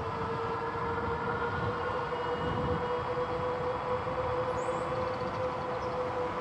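Himiway Zebra fat-tyre e-bike cruising at a steady speed: a steady whine of one pitch from the drivetrain over low road and wind rumble.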